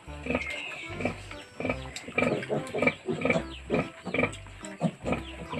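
A sow and her two-week-old piglets grunting: a steady run of short grunts, about two a second.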